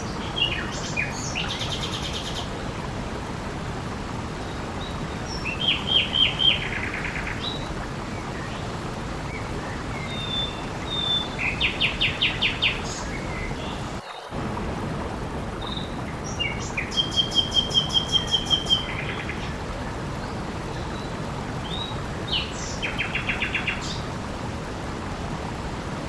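Songbirds singing short trilled phrases of rapidly repeated high notes, one about every five or six seconds, over a steady rush of flowing water. The water noise drops out for a moment about halfway through.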